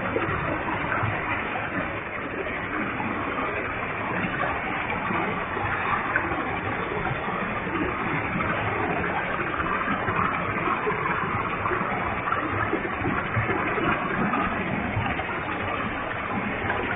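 Waterfall with a heavy flow of water: a steady, even rush of falling water and spray.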